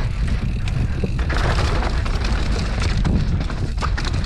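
Mountain bike riding down a dry dirt and sandstone trail: wind buffeting the microphone with a constant low rumble, tyres crunching over dirt and rock, and scattered quick clicks and rattles from the bike on the rough ground.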